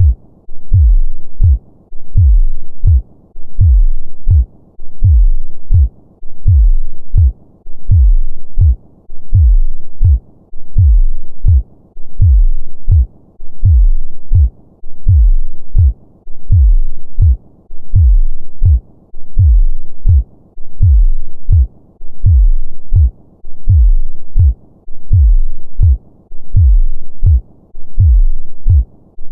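Human heartbeat of a normal heart: a steady, slow lub-dub rhythm of low paired thumps, about one pair every second and a half.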